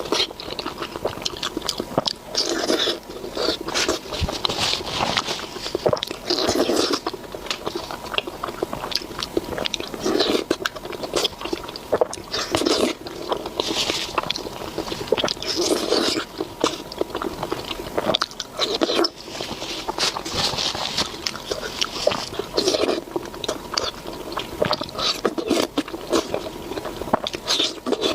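A person chewing and biting into salmon, in repeated bursts every second or two, with many small clicks of mouth sounds.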